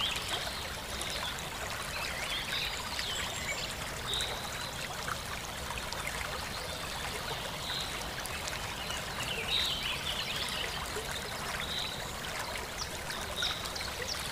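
Steady running water like a trickling stream, with short high chirps every couple of seconds.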